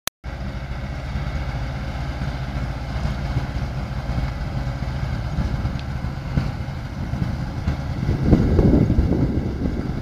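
Tractor engine and trailed Standen potato harvester running steadily while lifting potatoes, a steady low mechanical rumble. It grows louder and rougher about eight seconds in.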